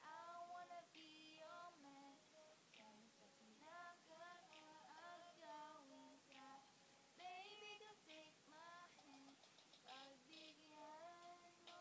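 A young girl singing solo, one voice in short melodic phrases that rise and fall in pitch.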